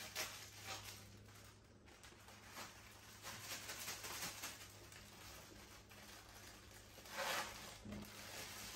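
Plastic crinkling and rustling as saltine crackers are handled out of their sleeve and slid into a zip-top plastic bag, with a louder rustle near the end.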